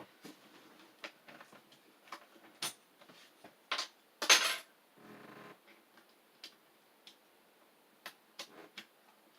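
Scattered small clicks and taps of a rubber keycap being fitted onto a Ducky mechanical keyboard and handled, uneven in spacing, with the loudest cluster of clicks about four seconds in.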